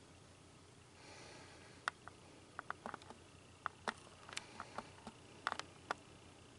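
Deer chewing apple pieces: faint, irregular sharp crunches that start about two seconds in and stop near the end, over a low hiss.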